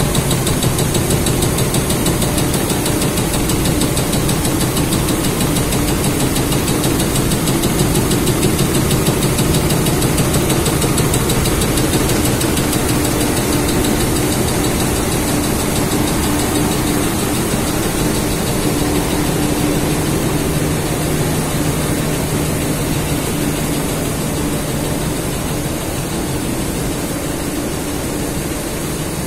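LK69 cotton comber running in a spinning mill: a loud, steady mechanical din with a low hum. It eases off slightly near the end.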